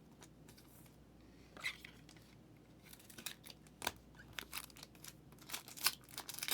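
Trading cards and their plastic packaging being handled: faint rustling, crinkling and light clicks, sparse at first and growing busier from about halfway through.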